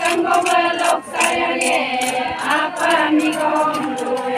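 A group of women singing a chant together in unison, holding each note and moving from note to note as one.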